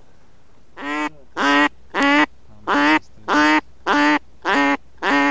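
A duck quacking: eight loud, evenly spaced quacks of even pitch, beginning about a second in, roughly one every 0.6 seconds.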